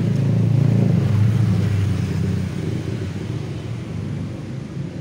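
A motor vehicle's engine running close by with a low hum, loudest about a second in and then slowly fading.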